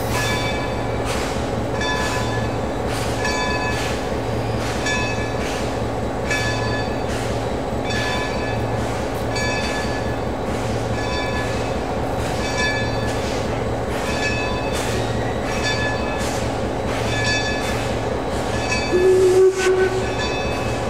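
Baldwin Locomotive Works No. 26 steam locomotive working slowly, with a steady, regular beat about every three-quarters of a second. Near the end, a short blast of its whistle.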